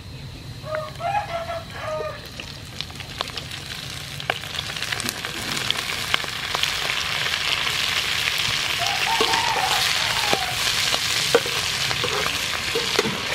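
Duck eggs and ovaries sizzling in hot oil in a frying pan, the sizzle building from about four seconds in, with scattered clicks and pops as a metal ladle stirs them.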